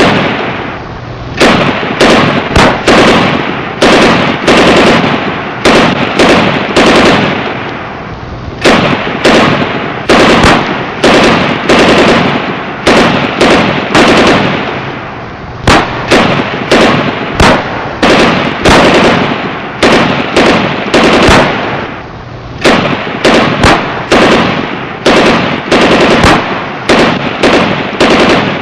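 Bursts of rapid gunfire, many sharp shots in quick succession with a ringing tail, broken by short pauses between bursts.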